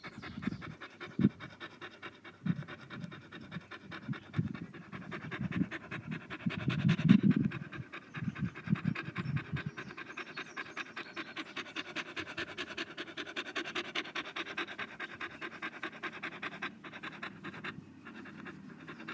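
Beagle panting fast and steadily. There are low thumps through the first half, the loudest about seven seconds in.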